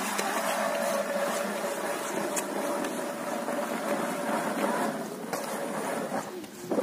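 A motor running steadily with one constant whine, stopping shortly before the end.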